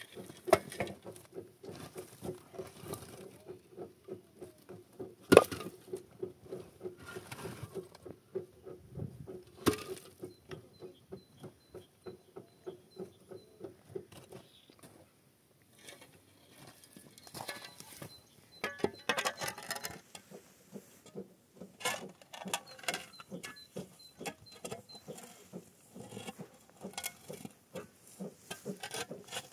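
Loose stones and broken concrete clattering and knocking as rubble and cinder blocks are moved by hand and with a shovel. Many small clicks, with a few sharper knocks about 5 and 10 seconds in.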